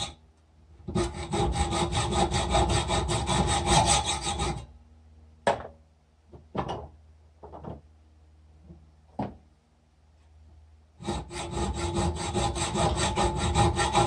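Hand hacksaw cutting around the top edge of an old spark plug's metal shell clamped in a vise, in two spells of quick back-and-forth strokes. Between them come a few short clicks and knocks as the plug is loosened and turned in the vise.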